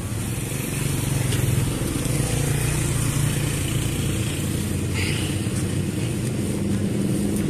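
A motor vehicle engine running at a steady idle close by.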